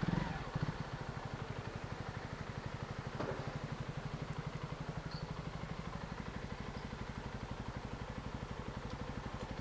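Honda CB125R's single-cylinder four-stroke engine idling steadily with an even, rapid pulse, with a knock at the start and another about three seconds in.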